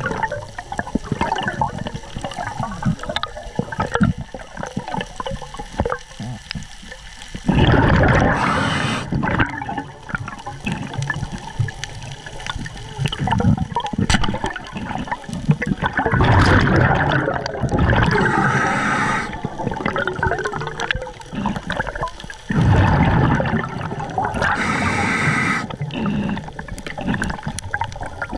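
Underwater sound from a camera on a spearfishing dive: water swishing and bubbling against the housing, with scattered small clicks and knocks. The rush swells into three louder surges of a couple of seconds each, about a third of the way in, just past halfway, and near the end.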